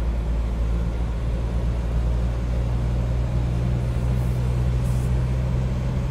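Mahindra Thar 4x4 driving: a steady low drone of engine and road noise.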